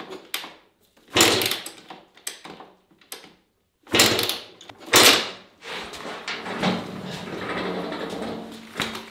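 Kawasaki KX100 two-stroke dirt bike being kick-started: hard kickstarter strokes that spin the engine over without it catching, the heaviest about a second, four and five seconds in, followed by a longer, steadier noise. The owners take the refusal to start for a flooded engine with a wet-fouled spark plug.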